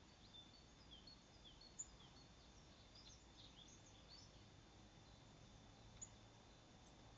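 Faint high bird chirps and twitters: many short calls crowd the first four seconds, then only a few, over a faint steady high whine.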